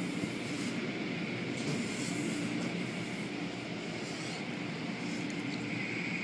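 Car wash machinery running with water spraying: a steady mechanical hum under a hiss of spray that swells and eases.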